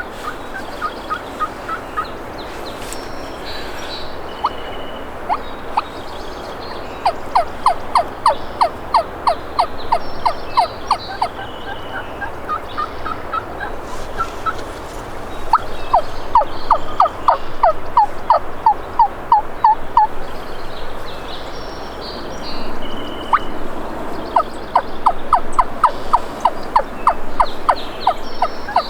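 Wild Rio Grande turkeys calling in three long runs of rapid notes, about three or four a second, with short higher bird calls scattered between.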